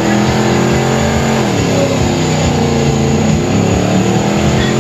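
Ford Crown Victoria's V8 held at high revs in a burnout, its rear tyre spinning on the pavement. The revs sag about a second and a half in and climb back up a second later.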